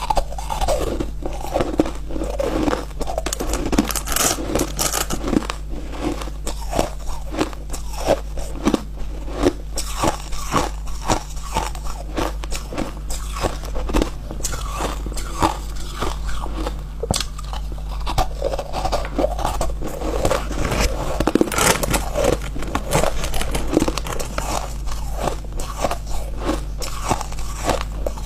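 Close-miked biting and chewing of refrozen shaved ice: a dense, irregular run of sharp, dry crunches, several a second.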